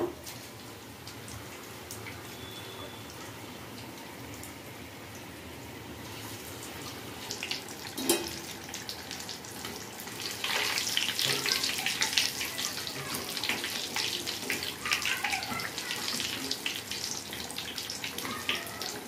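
Batter-coated potato fritters (aloo bhajiye) sizzling and crackling in hot oil in a kadai, the crackle growing louder about halfway through. A single knock about eight seconds in.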